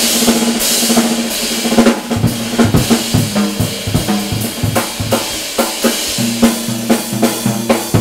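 Jazz drum-kit solo: a wash of cymbals for about the first two seconds, then a dense run of strokes around the drums and bass drum.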